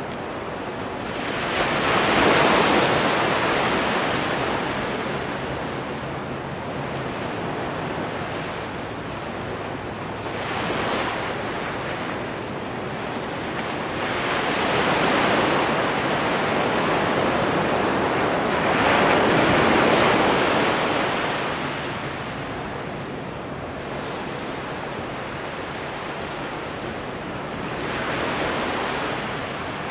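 Ocean surf breaking and washing up a sandy beach, rising and falling in slow swells. The loudest come about two seconds in and again around fifteen to twenty seconds, with a softer one near the end.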